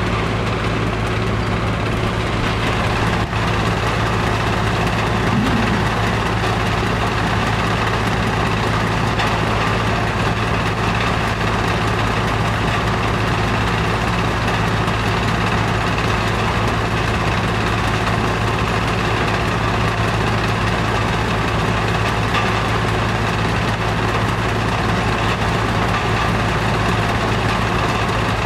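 Heavy machinery engine running steadily, an even hum that does not change.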